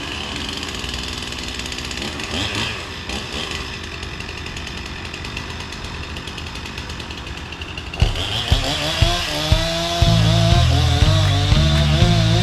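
Chainsaw running as a tree is cut up. About eight seconds in, rock music with a heavy drum beat and a wavering melody comes in over it.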